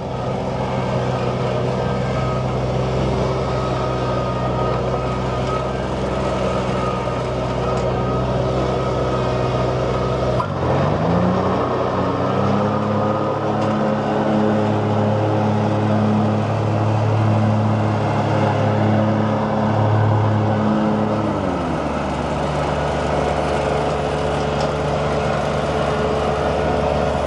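The 25 hp diesel engine of a Hustler Z zero-turn mower idling steadily. About ten seconds in it is throttled up to a higher, steady speed, held there for about ten seconds, then brought back down to idle.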